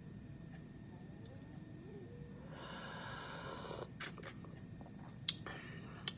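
A man slurping a sip of black coffee from a mug: one airy slurp about a second long near the middle. It is followed by a few small sharp mouth clicks and a short breath out as he tastes it.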